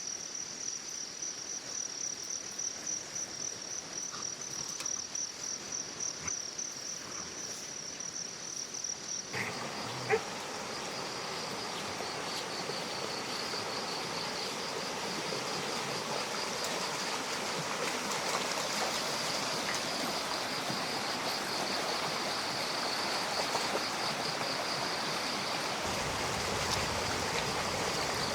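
Insects chirring in a fast, even pulse. About nine seconds in, the sound changes abruptly to the steady rush of a running stream, with insects still chirring over it. A single sharp tap comes just after the change.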